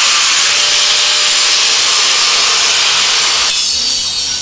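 Angle grinder grinding on a welded steel frame: a loud, steady gritty hiss that eases off about three and a half seconds in.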